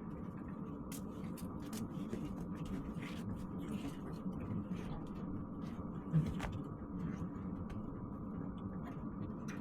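Steady hum and irregular ticking of a diesel heater running, with a single thump about six seconds in.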